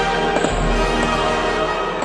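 Orchestral background music with sustained chords and a steady bass line.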